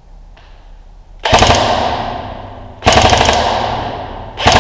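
Airsoft electric rifle firing three bursts on full auto, each a rapid clatter that starts suddenly and fades over about a second and a half. The first starts about a second in and the last just before the end.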